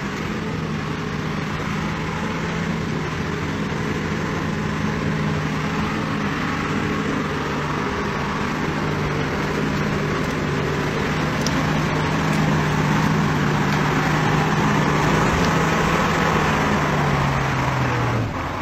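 Heavy military off-road truck's engine pulling steadily under load as it climbs through deep mud, getting louder as it comes closer, then easing off and dropping in pitch near the end.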